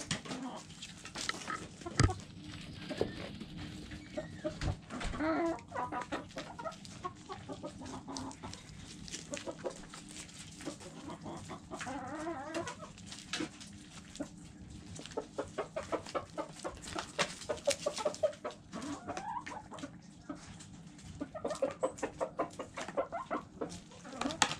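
Hens clucking while pecking at grain and vegetables in a plastic dish: runs of quick clicks from beaks striking the dish and ground, with bursts of clucking several times.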